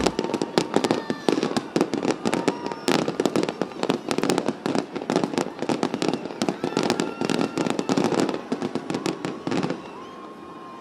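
Fireworks going off: a dense, fast run of sharp bangs and crackles, several a second, that thins out and goes quieter near the end.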